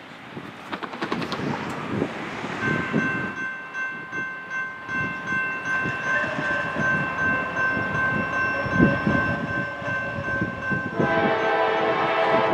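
Air horn of an approaching Norfolk Southern GE D9-40CW locomotive sounding one long, steady chord of about eight seconds. A second, fuller blast begins near the end. A low rumble of the oncoming train lies underneath.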